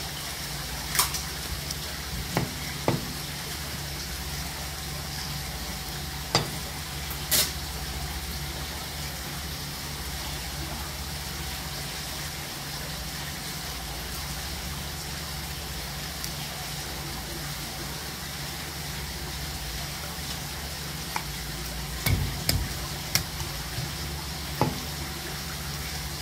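Gyuto chef's knife tapping and knocking against a cutting board now and then as a flounder is filleted and skinned: a few sharp taps in the first several seconds and a cluster near the end. Under them runs a steady hiss with a low hum.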